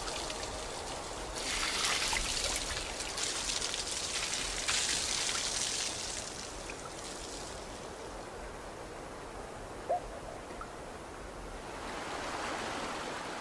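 Water trickling and running, a shallow stream sound that is louder in the first half and then settles lower.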